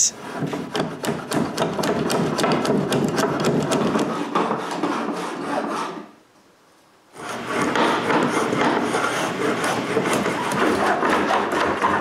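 Veritas router plane shaving the bottom of a groove in a hardwood rail, in many quick short scraping strokes, to level a groove floor that tore out in places. The scraping stops for about a second near the middle, then goes on.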